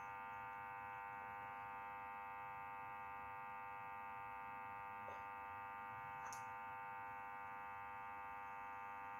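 Faint, steady electrical hum made of several even tones, with two faint light clicks about five and six seconds in.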